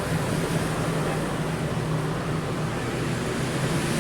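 Steady background noise with a low, even hum, like traffic and machinery around the food stall; no single event stands out.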